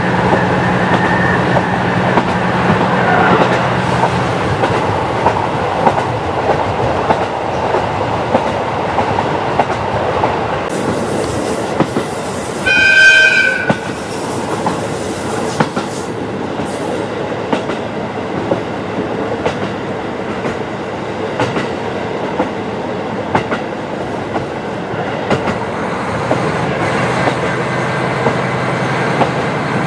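KiHa 40 diesel railcar running on jointed track: the diesel engine drones under power for the first few seconds, then drops away as the car coasts with rail-joint clicks. A horn blast of about a second comes near the middle, and the engine comes back under power near the end.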